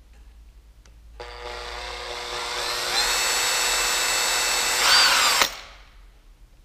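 Cordless drill-driver running at the end of a motorcycle handlebar for about four seconds. Its whine steps up in speed twice, then cuts off suddenly.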